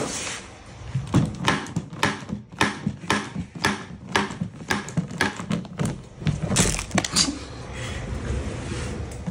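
A cat scrabbling inside a plastic top-entry litter box: a quick run of scratchy knocks, about three a second, lasting about six seconds before dying down.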